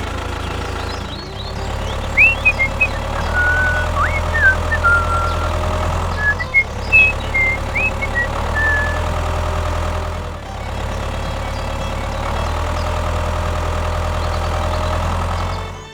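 A small engine running steadily, its level shifting up and down every couple of seconds. Short high chirps come through over it from about two seconds in until about nine seconds in.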